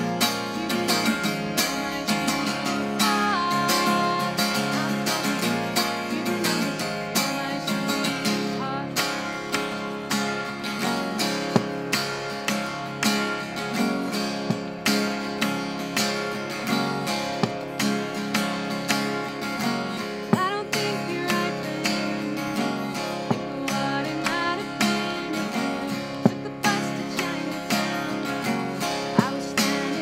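Steel-string acoustic guitar being strummed and picked in a steady rhythm.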